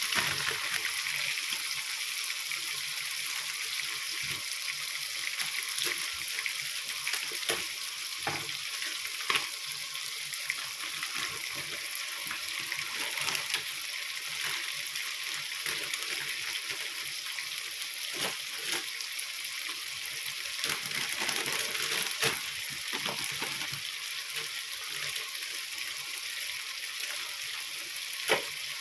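Food sizzling steadily in a hot pan, with occasional clicks and knocks from a utensil stirring it.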